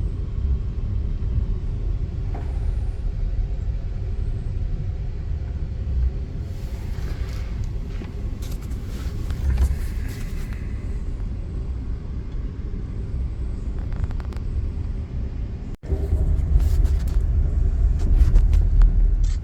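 Steady low rumble of a moving passenger train heard from inside the car, with the running noise of the wheels on the rails. Near the end it cuts out for an instant and comes back louder.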